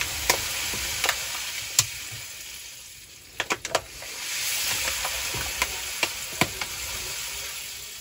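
Dishwasher salt pouring from a plastic pouch into the dishwasher's salt reservoir: a steady grainy hiss that dies down around three seconds in and picks up again, with a few sharp clicks along the way.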